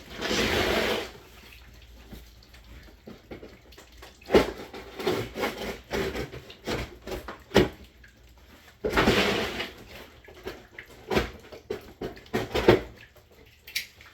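Cardboard water heater box being cut open and handled: two rasping cuts of about a second each, near the start and about nine seconds in, with scattered knocks and rustling of cardboard between them.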